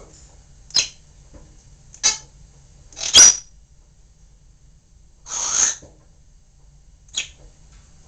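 African grey parrot making a series of short, sharp squawks and clicks, five in all, spaced about a second apart. The loudest comes about three seconds in, and a longer rasping one follows a couple of seconds later.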